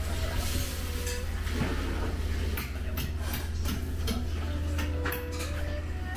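Dishes and utensils clinking and knocking in a restaurant, a quick run of sharp clatters about two and a half seconds in, over a steady low hum.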